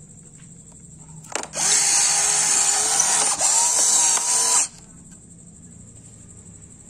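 A small electric gear motor whirs loudly for about three seconds with a steady pitched whine. It dips briefly about halfway through, then cuts off suddenly.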